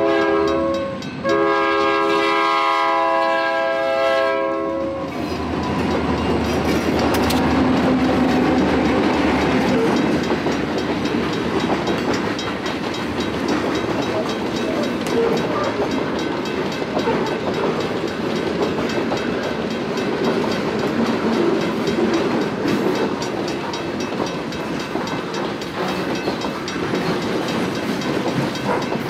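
Reading & Northern diesel freight locomotives sounding their multi-tone air horn for a grade crossing. It is a blast that breaks off briefly about a second in, then a long blast that ends about five seconds in. The locomotives then pass and a string of freight cars rolls by with steady wheel clatter over the rail joints.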